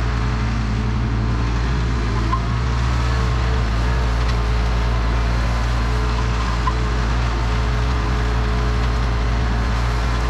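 Bad Boy 4035 tractor's engine running steadily.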